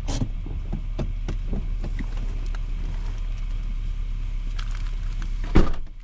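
Low steady rumble of a car with scattered light clicks. A loud thump comes about five and a half seconds in, and the rumble drops off right after it.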